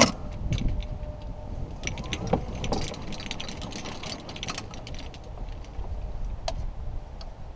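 Golf cart running over rough grass with a low rumble and a scatter of light clicks and rattles. It comes to a stop with a single click near the end.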